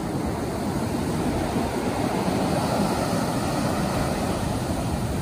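Surf breaking and washing up a sandy beach at high tide, a steady rush of noise.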